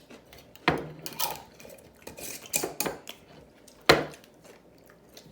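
Tableware clinking and knocking at the table: several sharp clinks, the loudest about a second in and again about four seconds in.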